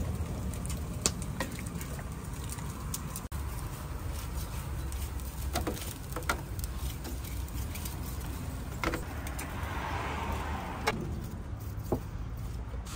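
Steady low rumble with about a dozen sharp clicks and knocks scattered through it, and a short hiss about ten seconds in.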